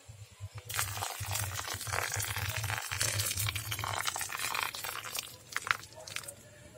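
Boiling water poured from a kettle onto compost nursery mix in a plastic tray, splashing steadily and stopping about four seconds in, followed by faint fizzing and small ticks. It is hot-water sterilization of seedling potting mix.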